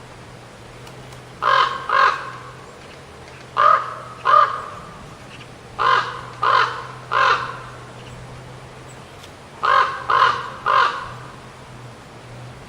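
Raven calling: ten short caws in groups of two or three, with pauses of about a second and a half between groups.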